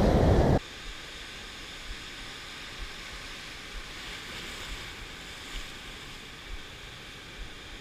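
Surf breaking and foaming over sea rocks, a steady hiss. About half a second in, a louder rush of wind and surf noise stops abruptly and the quieter wash continues.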